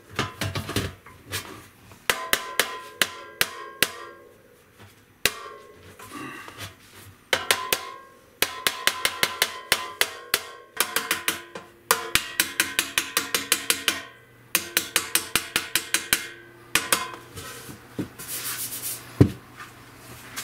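Light hammer taps on the silver-plated brass bell of a 1917 King baritone saxophone, struck against a dent dolly to work out a small dent. The taps come in quick runs of about five a second with short pauses between, and the bell rings briefly after each tap.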